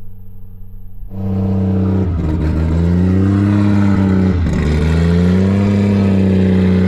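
Freshly rebuilt Toyota 2JZ straight-six in a drift car running at a steady fast idle, cutting in about a second in. The engine speed sags and rises gently a few times.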